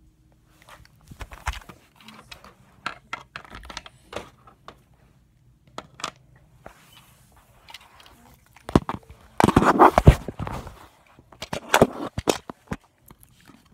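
Handling noise: scattered clicks, knocks and rubbing as a phone is moved about and toys are shifted around a dollhouse, with a louder stretch of rustling a little past two-thirds of the way through.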